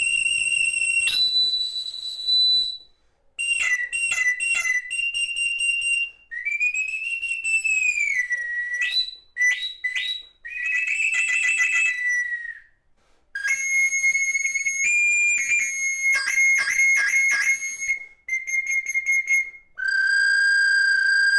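A small Mexica hummingbird whistle (huitzili), a reproduction of a pre-Hispanic whistle, blown in a long series of loud, high-pitched blasts: held notes, quick runs of short toots, and notes that swoop up and down or jump in pitch, with short breaths between phrases.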